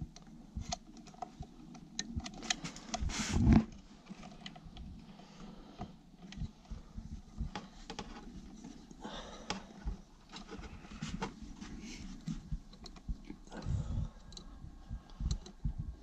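Irregular close-up clicks, taps and scrapes of hand work with small parts and tools, with a louder clatter about three seconds in and a few heavier knocks near the end.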